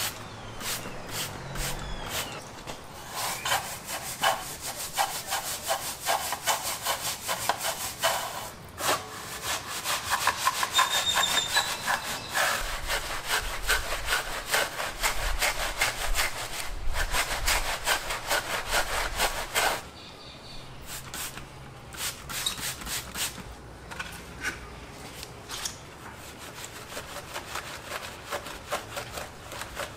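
A bristle wheel brush scrubbing a soapy chrome truck wheel in rapid back-and-forth strokes. The scrubbing is softer in the last third.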